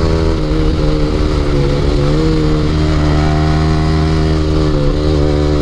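Yamaha R15's single-cylinder engine running through an aftermarket Akrapovic exhaust at steady throttle while riding, its pitch easing off slightly about two seconds in and again near the end, over wind and road noise.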